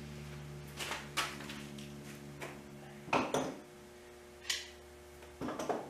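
Metal bar clamps on a glued-up board panel being handled, with a scattering of short metallic clinks and knocks, over a low hum that dies away partway.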